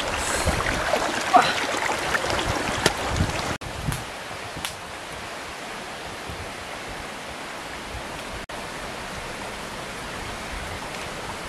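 Water rushing over rocks in a shallow stream, with a couple of sharp knocks in the first few seconds. About three and a half seconds in, the sound drops to a quieter steady hiss.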